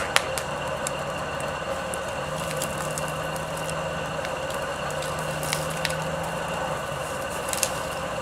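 Dead branches of a fallen pine snapping and crackling a few times as they are broken and pulled off by hand, over a steady background hum.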